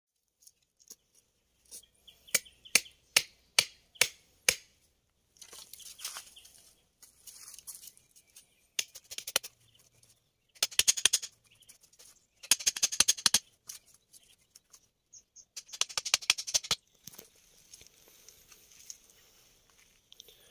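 A run of about eight sharp knocks, roughly two a second, followed by several short bursts of scratchy rustling.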